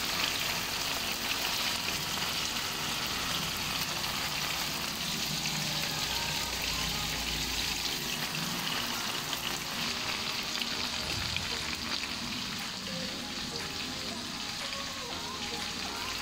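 Chicken pieces frying in hot oil in a nonstick pan: a steady sizzle full of fine crackles.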